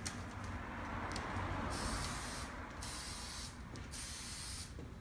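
Aerosol can of 3M Super 77 spray adhesive hissing in three short bursts with brief gaps between them, as the glue is sprayed onto the convertible top's fabric listings.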